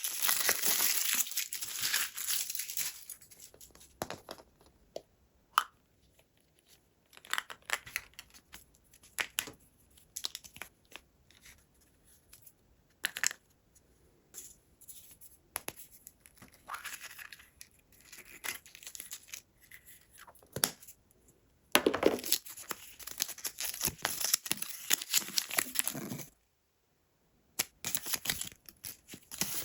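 Toy packaging being opened by hand: plastic and cardboard crinkling and tearing, with scattered clicks and taps between longer bursts of rustling at the start and again about twenty-two seconds in.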